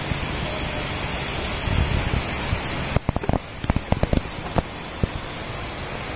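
Steady rushing outdoor noise. About halfway it drops and gives way to a run of irregular sharp knocks, then quieter steady noise.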